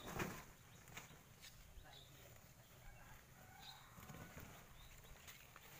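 Near silence: faint outdoor ambience with a few faint bird chirps and a brief noise just after the start.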